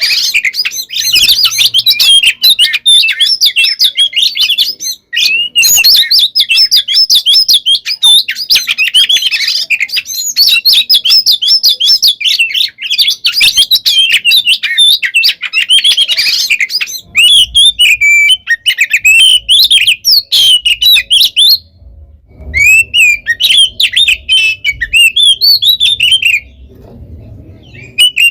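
Oriental magpie-robin (kacer) singing its loud, aggressive fighting song: a rapid, unbroken stream of varied chirps and whistles. It breaks off briefly about five seconds in, again near the twenty-two-second mark, and shortly before the end.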